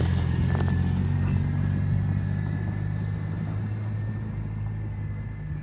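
A steady low engine hum that eases slightly toward the end, with a thin high tone above it.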